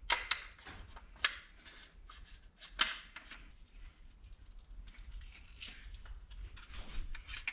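A few sharp clicks and knocks as an AR-15 rifle is handled and moved about. The loudest knock comes about three seconds in.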